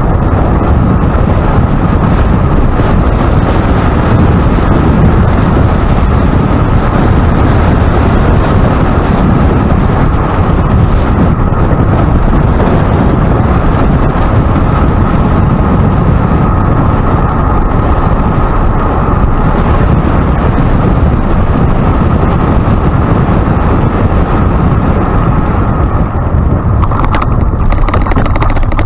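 Wind buffeting the bike-mounted microphone together with the bicycle's tyres rolling on pavement: a loud, steady noise. Near the end a few short knocks as the tyres roll onto the wooden bridge deck.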